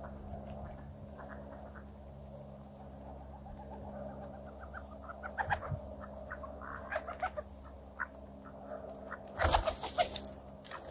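Mallard ducks feeding close by, giving soft low quacks among short, quick clicking sounds, with a loud, brief rustle right at the microphone a little before the end.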